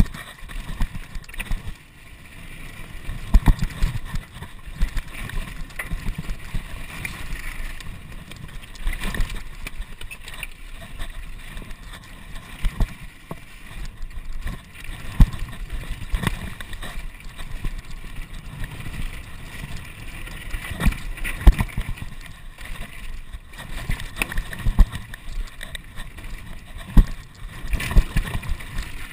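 Trek Slash 9 full-suspension mountain bike descending a rough dirt downhill track at speed. The tyres hiss and crunch over loose dirt, the bike rattles, and irregular sharp knocks come from hitting bumps, all over a steady low wind rumble.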